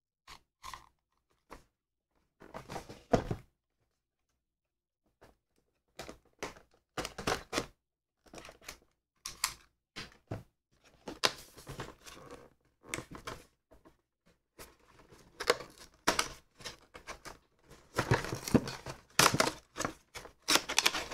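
A thin cardboard retail box being handled and slit open with a utility knife, then its flimsy top tearing: scattered taps and scrapes at first, becoming a busy run of cutting, rustling and ripping toward the end.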